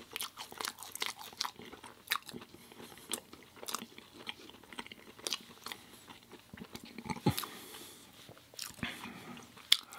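Close-miked eating: a person chewing and biting food, with irregular wet mouth clicks and crunches, and a louder crunch about seven seconds in.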